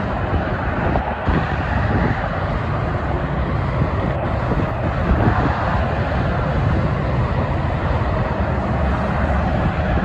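Steady noise of heavy multi-lane highway traffic, with cars and tractor-trailers passing and their tyre and engine noise blended together.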